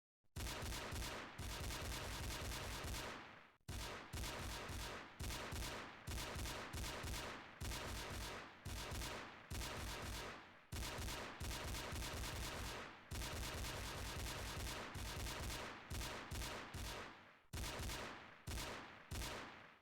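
Pistol gunshot sound effects: a string of short volleys, each a rapid run of shots lasting one to three seconds that trails off before the next begins.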